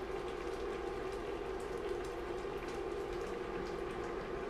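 Pasta boiling uncovered in chicken stock and cream: a steady bubbling crackle over a steady hum.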